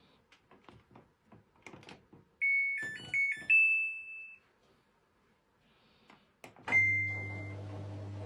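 Samsung EcoBubble washing machine control panel: a run of soft button clicks, then a short chime of several electronic beep notes. A few more clicks follow near the end, then a single longer beep, and a steady low hum starts up as the machine begins running.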